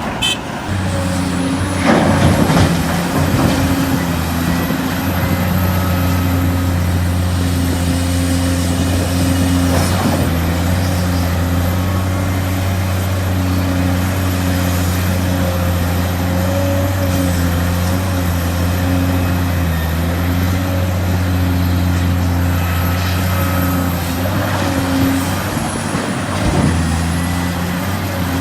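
Heavy diesel engines of quarry excavators and dump trucks running steadily with a deep, even hum and a faint high whine. Sharp knocks come about two seconds in and again about ten seconds in.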